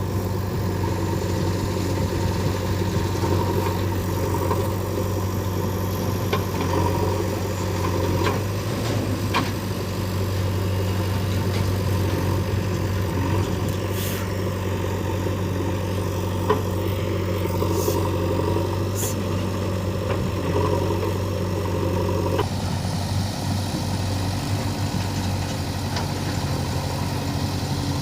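Diesel engine of heavy earth-moving machinery running steadily, with a few sharp clinks and knocks. The engine sound changes abruptly about 22 seconds in.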